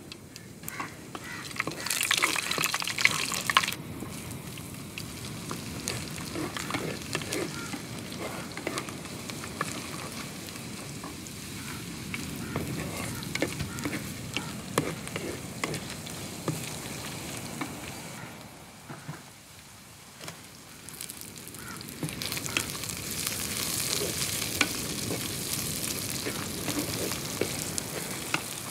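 Garlic and whole spices sizzling in hot oil in a clay pot, stirred with a spatula that clicks and scrapes against the pot. The sizzling grows louder about two seconds in, eases off for a while, and swells again over the last several seconds.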